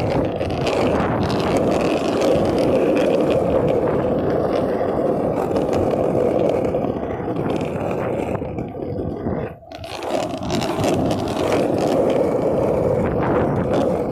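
Longboard wheels rolling over pavement: a steady, grainy rolling noise, with a brief dip about nine and a half seconds in.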